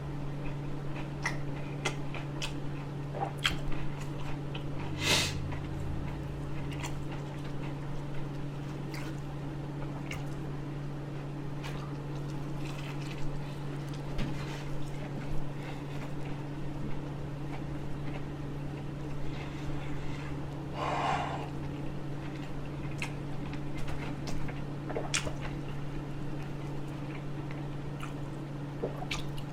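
A person chewing and eating fast food close to a shirt-clipped lapel microphone: scattered wet mouth clicks and smacks, a sharper click about five seconds in and a longer wet smacking noise about twenty seconds in, over a steady low hum.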